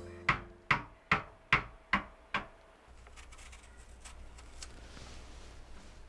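A wooden rolling pin tapping a wooden skewer down through an apple: six sharp knocks, a little over two a second, stopping about halfway through.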